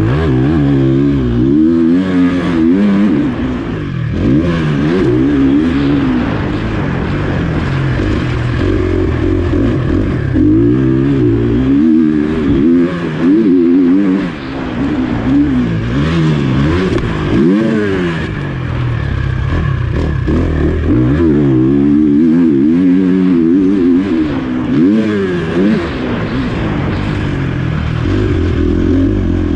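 Motocross bike engine under hard riding, revving up and dropping back again and again every second or two as the rider works the throttle and gears, heard from on the bike.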